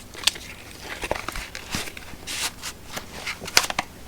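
Small clicks, taps and rustling as a multi-tool is handled and fitted into its sheath. The sharpest clicks come about a quarter-second in and again near the end.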